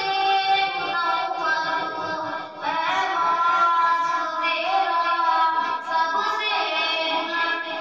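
A boy's solo voice singing a naat, an Urdu devotional poem, into a headset microphone, with long held notes that glide and waver in pitch.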